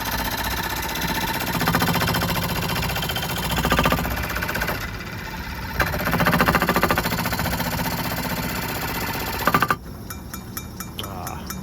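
Vintage Dunlap 13-inch bench jigsaw running, its reciprocating blade cutting through a thick piece of wood with a fast even rhythm that grows louder twice as the blade bites. It cuts off abruptly about ten seconds in, leaving fainter rapid ticking.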